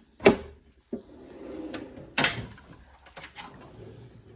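Steel tool chest drawers being shut and opened: a sharp knock, then a drawer rolling on its slides and stopping with a second bang, followed by a few light clicks.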